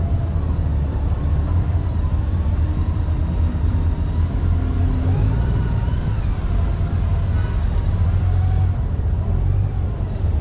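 Honda Gold Wing touring motorcycles riding at low speed in a group, heard from on board one of the bikes: a steady low engine rumble mixed with wind noise on the microphone.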